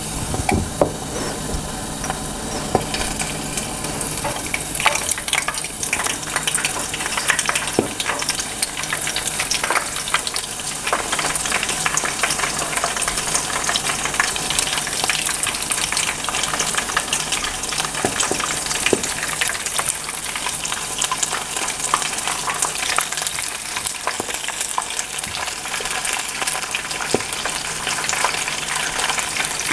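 Oysters frying in hot oil in a pan: a steady sizzle with fine crackling and scattered small pops.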